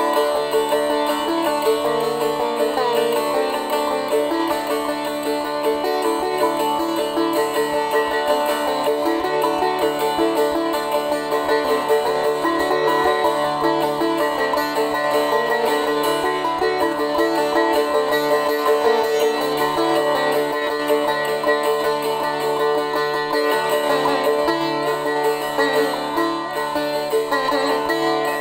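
Instrumental background music led by a plucked string instrument, playing steadily throughout.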